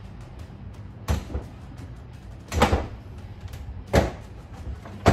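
Sharp clunks and clicks of a bike trunk rack's metal frame and plastic parts being handled and knocked on a plastic bin lid while its zip ties are cut off. There are four knocks, spaced about one to one and a half seconds apart.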